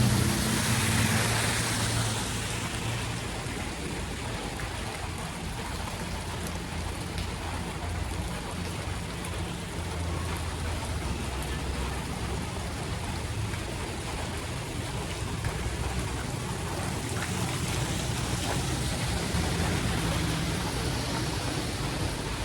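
Heavy rain and running floodwater on a street, a steady hiss. A vehicle's engine is loudest at the start and fades within the first two seconds, and a faint low engine hum stays under the water.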